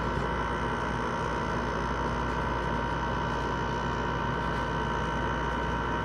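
LG window air conditioner running just after its compressor has kicked on: the fan blowing with a steady low hum and several steady high whining tones over it, unchanging throughout.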